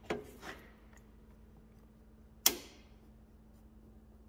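Metal clinks of a steel pipe against locking pliers (vice grips) clamped on a seized exhaust bolt: two faint taps near the start, then one sharp metallic clack with a brief ring about halfway through.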